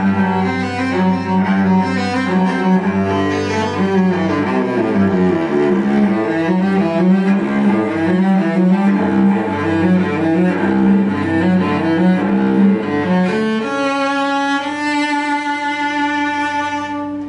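Cello bowed, playing a flowing melody over a low sustained note, then settling on one long held note that fades out at the very end.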